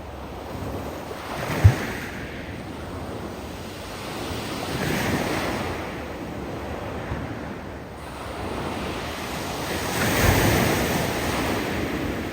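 Surf breaking on a steep beach of loose stones in three swelling surges, each with a hiss of rocks tumbling in the water as it draws back. A sharp thump about a second and a half in is the loudest moment.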